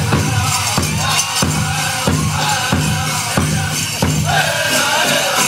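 Powwow drum group singing a chicken dance contest song over a steady big-drum beat, about three beats every two seconds. A high vocal line comes in strongly about four seconds in.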